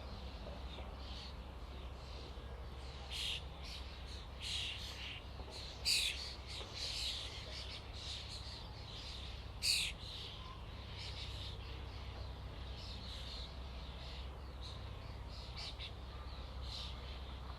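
A flock of common starlings calling: many short, harsh, overlapping calls, with a few louder ones about 3, 6 and 10 seconds in. A steady low rumble sits underneath.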